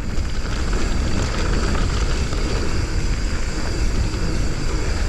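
Steady wind rumble on a helmet- or bike-mounted action camera's microphone, mixed with the rough crunch of mountain bike tyres rolling over a dry dirt and gravel trail.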